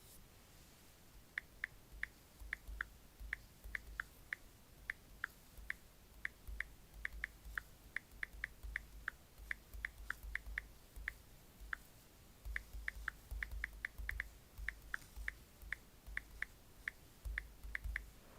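Fingertips tapping on a tablet's touchscreen, each tap giving a short click over a dull thud, at an uneven pace of about three or four taps a second, like typing on an on-screen keyboard.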